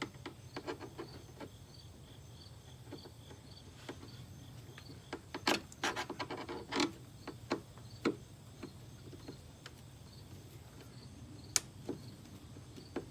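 Irregular clicks and knocks of a hand tool working on a commercial vacuum's housing while trying to get a part off, with a few sharper knocks scattered through.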